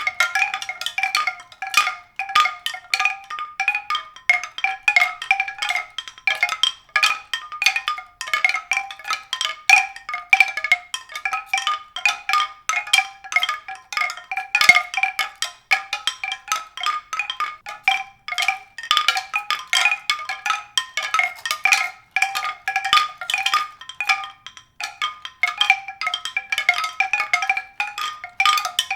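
Mallet percussion playing a continuous stream of quick, high struck notes.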